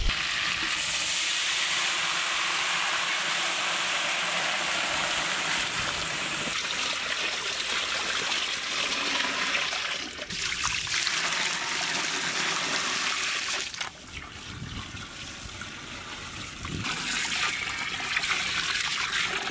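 Water poured from a metal bowl into a large cooking pot, splashing onto a whole marinated lamb and the liquid around it. It comes as a steady rushing pour with a short break about ten seconds in, a quieter stretch after about fourteen seconds, and a louder pour again near the end.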